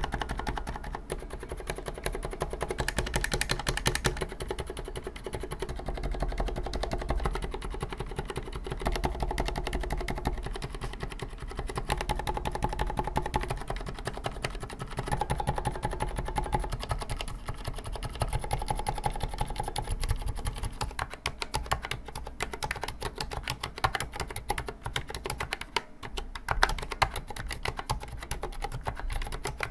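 Continuous typing on a Vortex Cypher US1 68-key mechanical keyboard with Cherry MX Silent Red switches and PBT keycaps: a rapid, steady run of muted keystrokes. The thick case still has a hollow resonance, by the reviewer's account.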